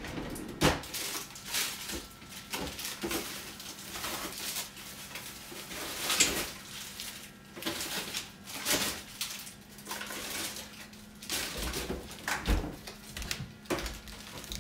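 Irregular knocks, clicks and rustles of things being handled and moved about in a kitchen, with plastic packaging among them. A faint steady hum comes in about ten seconds in.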